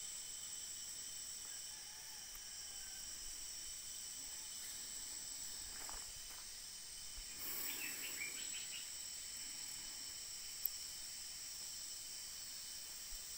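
Steady high-pitched chorus of insects in farm vegetation, with a brief burst of chirping about halfway through and a single sharp click a little later.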